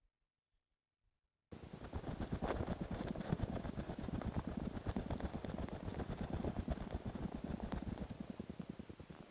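Footsteps on a tarmac lane and jacket rustling, from a walker's own camera, coming in suddenly after about a second and a half of silence. A sharp click comes shortly after the sound starts.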